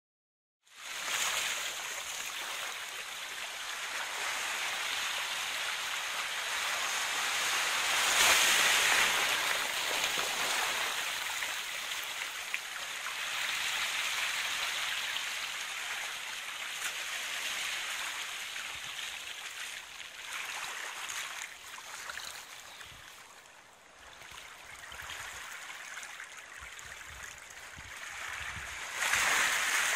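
Small waves washing onto a pebbly shoreline: a steady rushing hiss that swells and eases, loudest about eight seconds in and again near the end.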